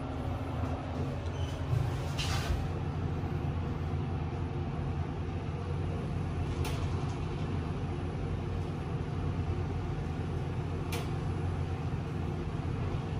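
Otis Gen2 Regen lift car travelling down in its shaft: a steady low hum and rumble in the cabin. Three brief clicks come about four seconds apart.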